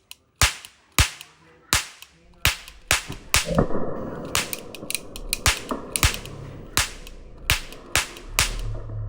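A long string of single gunshots, about fifteen sharp cracks at roughly one every half to three-quarters of a second, each with a short ringing tail. From about three and a half seconds in, a steady low hum with a faint high tone runs under the shots.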